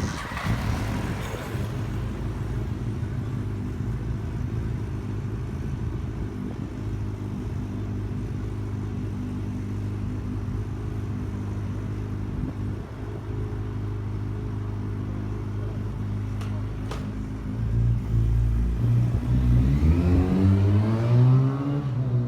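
A motor vehicle's engine or motor running with a steady low hum, then rising in pitch and getting louder as it speeds up near the end.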